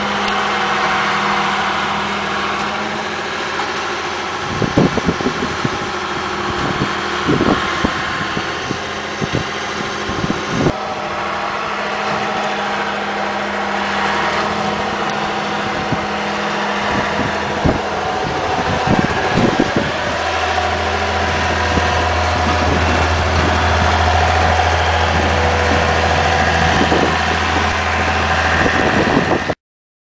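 Farm tractor engine running as it pushes snow with its front loader bucket, with scattered knocks; the engine hum deepens and grows stronger about two-thirds of the way through, and the sound cuts off abruptly just before the end.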